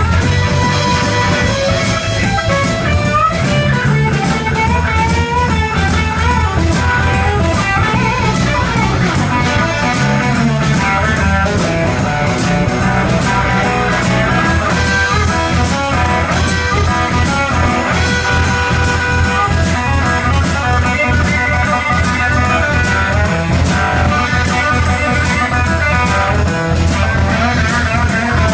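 Live blues-rock band playing: electric guitar leading over a drum kit that keeps a steady beat.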